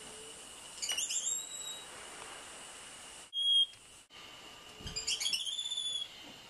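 Small pet mammals giving high-pitched whinnying calls: a few about a second in and a quick run of them around five seconds in, each call dropping in pitch and then levelling off. A single brief, louder shrill note sounds in the middle.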